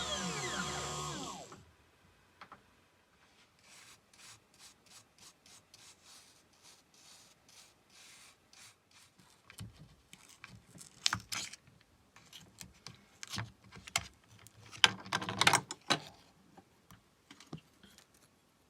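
Music fades out in the first second or so. Then come faint, evenly repeated scraping strokes, about two to three a second, which grow into louder, irregular rubbing and scraping.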